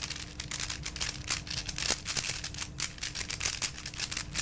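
Two speedcubes being turned very fast during a race to solve them: rapid, irregular clicking and clattering of the plastic layers.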